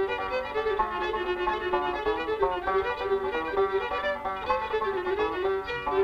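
Background music: a fiddle playing a quick tune of short, fast-changing notes.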